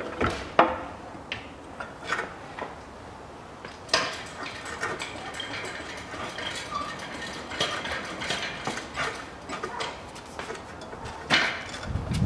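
Metal hand tools clinking and knocking against a car's steel subframe and engine-mount brackets: scattered sharp clicks with quieter handling noise between them, and a heavier low thump at the very end.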